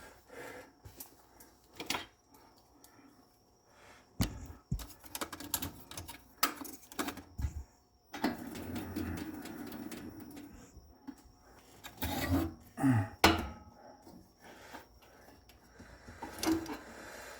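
Workbench handling sounds while a pool cue is re-tipped: scattered clicks and knocks of tools and wood, with a few seconds of scraping about eight seconds in and a few louder knocks a little later.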